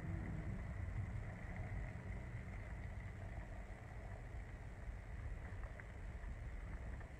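Car driving along, its engine and road noise a steady low rumble heard from inside the cabin.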